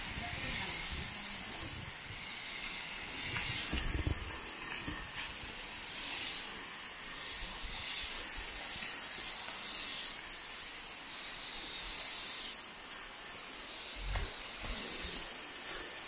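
High-pitched insect chorus of the tropical forest, a shrill hiss that swells and drops away every second or two. A few low thumps come about four seconds in and near the end.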